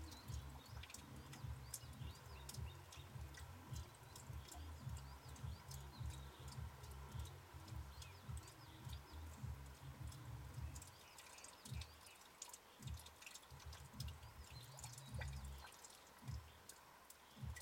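Quiet ambience in falling snow: wind rumbling unevenly on the microphone, easing off in the second half, with faint, repeated high chirps of small birds and scattered light ticks.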